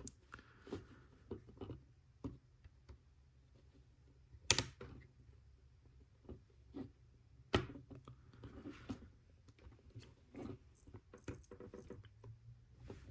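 Plastic LEGO pieces being handled and pressed together: scattered light clicks and rattles, with two sharper snaps about three seconds apart.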